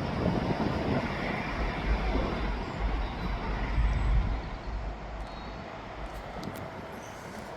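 Heavy earthmover rumbling, loud for the first four seconds or so and then fading away.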